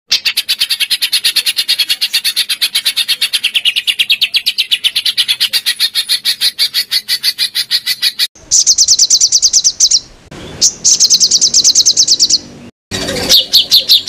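Songbird song made of very fast, even trills of high notes. A long steady trill runs for about eight seconds, then three louder, higher rapid trills of about a second and a half each follow, starting and stopping abruptly.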